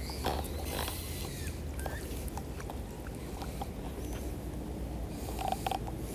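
Steady low rumble of wind and flowing creek water on a body-worn camera's microphone, with scattered small clicks and rustles as the angler handles the fly line while bringing in a fish.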